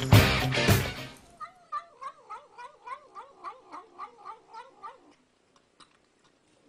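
A cat's drawn-out yowl that wavers up and down in pitch several times a second and lasts about four seconds, starting just after rock music cuts off in the first second.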